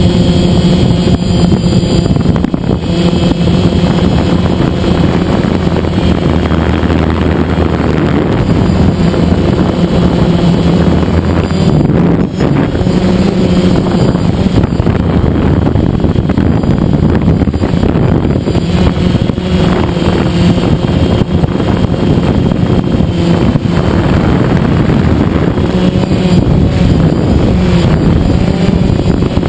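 DJI Phantom quadcopter's four electric motors and propellers buzzing steadily in flight, heard from the camera mounted on the drone itself; the pitch wavers slightly as it manoeuvres.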